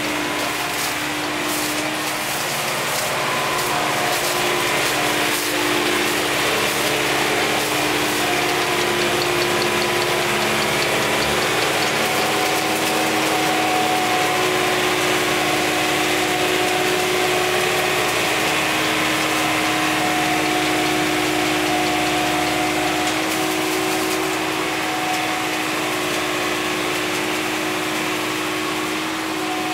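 Small tractor's engine running steadily as its rear-mounted cane cutter cuts through old raspberry canes. Bursts of sharp clicks and cracks come near the start and again about three quarters through, and the engine is loudest while passing close by in the middle.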